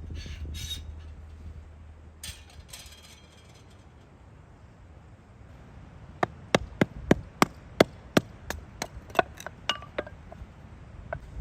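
A run of about fifteen sharp hammer strikes, roughly three a second, starting about six seconds in and thinning out near the end, some with a short metallic ring.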